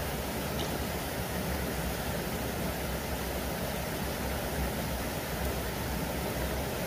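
Steady rushing of flowing stream water, an even noise with no breaks.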